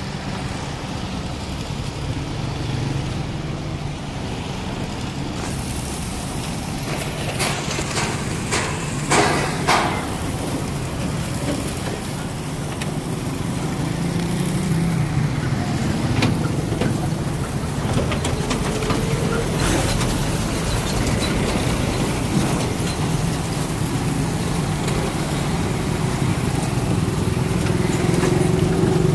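Road traffic with vehicle engines running steadily, and a cluster of sharp knocks or rattles about eight to ten seconds in.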